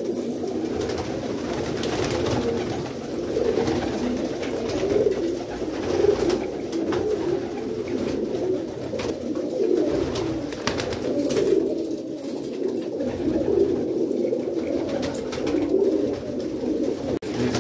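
Many domestic pigeons cooing at once, a steady low stream of overlapping coos with no break.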